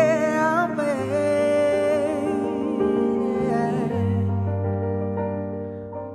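A live band playing a stretch of a soul-jazz song without sung words: held bass notes and keyboard chords change every few seconds under a wavering melody line with vibrato, loudest at the start.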